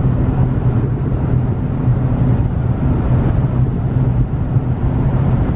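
Steady road and engine noise of a moving car, heard from inside the cabin while driving through a road tunnel, with a constant low hum.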